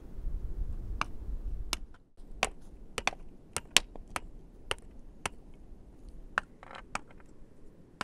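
Rough stones knocking sharply against one another as they are wedged around the foot of an upright bamboo pole: a dozen or so irregular clacks, about two a second, from about two seconds in. A low rumble comes first.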